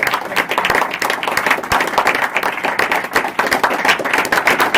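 A small audience clapping steadily in unison, a short round of applause given as a tribute at the speaker's request.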